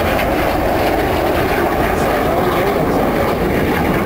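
Jet engines of the Red Arrows' BAE Hawk T1 jets making a steady rushing noise as the formation flies past.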